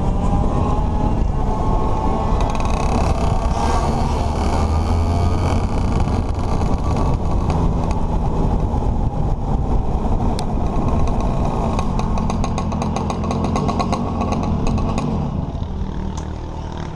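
Racing kart's two-stroke engine running at part throttle as the kart rolls off the track, with a fast clicking rattle in the middle stretch; the engine note drops and quietens near the end as the kart comes to a stop.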